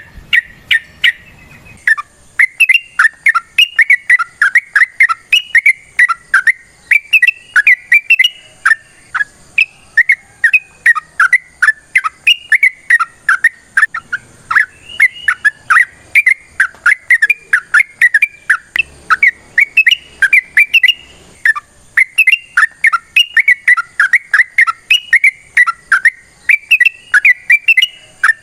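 Yellow-vented bulbul (trucukan) singing a long, rapid run of chirping notes, its 'ropel' song, with a short break about two seconds in before the song picks up again.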